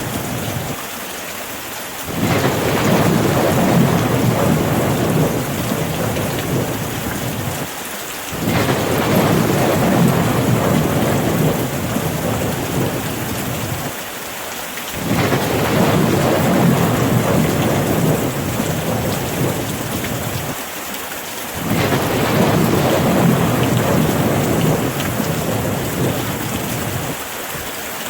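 Steady rain falling as a dense hiss, with a low rumble that swells and then drops away briefly about every six to seven seconds, repeating evenly like a loop.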